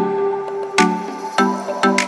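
Background music: an electronic track of short plucked notes, each with a percussive hit, about two a second.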